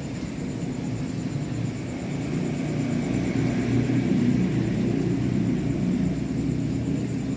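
Airbus A320 jet airliner's CFM56 turbofan engines rumbling overhead, swelling to their loudest about four seconds in and then easing off as the plane passes.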